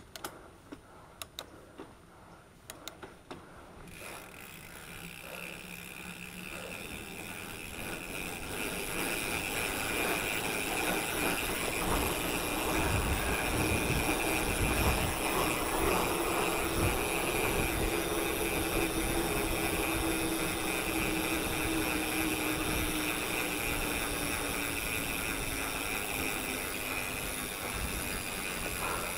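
Mountain bike rolling along a dirt trail: tyre rumble and wind noise on the camera, with a steady high whir over it. A few sharp clicks come first, and the sound swells much louder after about four seconds.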